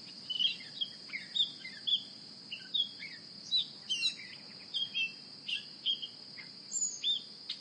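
Birds chirping in quick, separate calls, several a second, over a steady high-pitched insect buzz.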